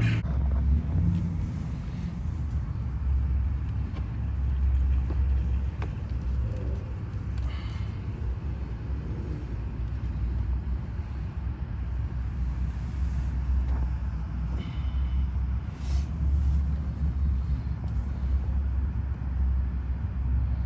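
Steady low vehicle rumble, with a few light clicks and taps as plastic cold-air-intake parts are pushed together by hand.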